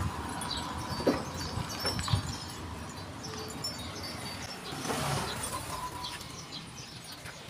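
Hard plastic parts of an air cooler knocking and scraping as the blower-housing cover is handled and lifted off the fan wheel, with two sharp knocks about one and two seconds in.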